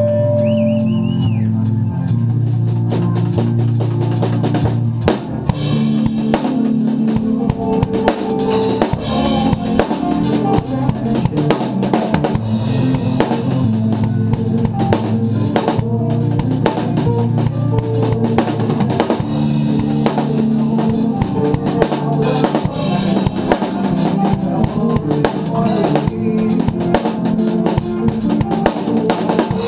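Drum kit played hard, with kick drum, snare and cymbals, along to a progressive metal song with sustained low guitar and bass parts.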